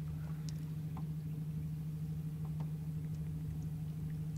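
Boat motor running steadily at trolling speed, a constant low hum with no change in pitch, with a few faint ticks over it.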